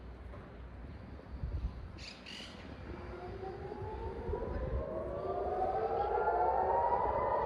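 Civil defense air raid siren winding up about three seconds in, its wail rising slowly in pitch and growing steadily louder, with several overlapping tones. Two short high chirps come just before it starts.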